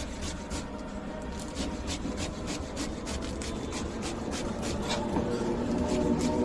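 Knife chopping green chillies on a cutting board: a quick, even run of blade strikes, about three to four a second.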